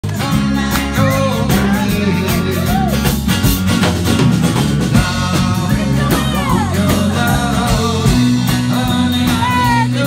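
Live rock-and-roll band playing: a man singing into a microphone over acoustic guitar and a drum kit, with a steady beat.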